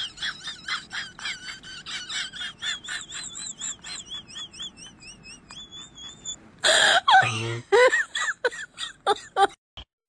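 High-pitched laughter in quick pulses, about five a second, with a wavering pitch. About two-thirds of the way in, a much louder, lower burst of voice breaks in, followed by several short loud bursts of laughter that cut off suddenly near the end.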